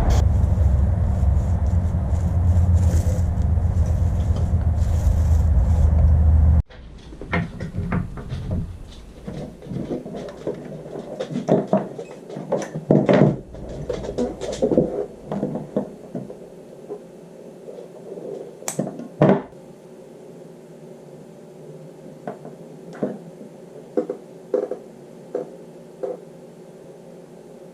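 A loud steady low rumble that cuts off abruptly about six and a half seconds in, followed by scattered knocks, clicks and clatter of objects being handled.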